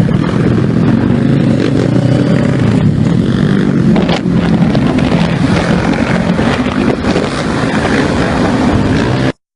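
Small motorcycle engines running loud and steady at speed, with a rough, noisy edge. The sound cuts off suddenly near the end.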